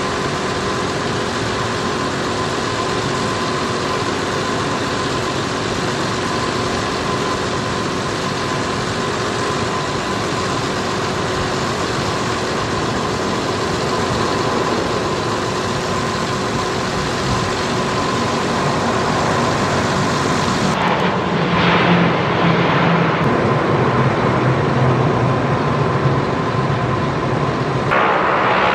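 C-130 Hercules' four turboprop engines running in a steady drone with a whine, as the aircraft comes in to land. About 20 seconds in, the sound changes suddenly to a louder, deeper rumble.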